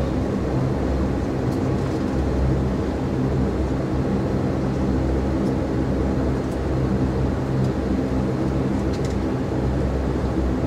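Airliner engines and the rumble of the cabin, heard from inside the plane: a steady, even drone during the takeoff roll.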